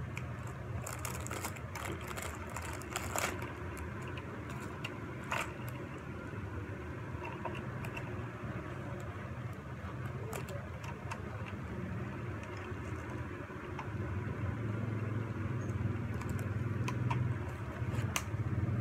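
A steady low hum that grows louder over the last few seconds, with scattered light clicks and taps of small cards and plastic toys being handled.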